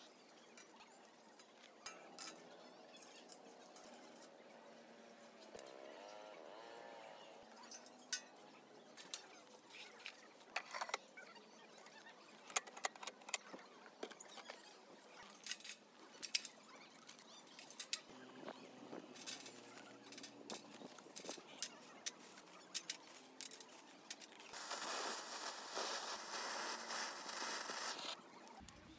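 Scattered light clinks and rattles of a stainless steel mesh grill brazier's panels and parts being handled and fitted together. Near the end a hand-held charcoal lighter hisses steadily for about four seconds as it lights the charcoal, then stops.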